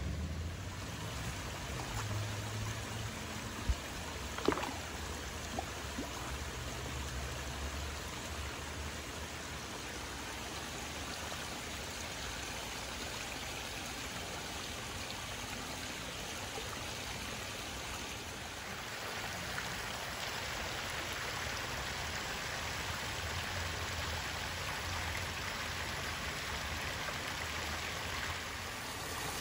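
Water running down a rocky garden stream and spilling over a small waterfall into a koi pond, a steady rushing trickle. A couple of short knocks come about four seconds in, and the water grows a little louder and brighter about two-thirds of the way through.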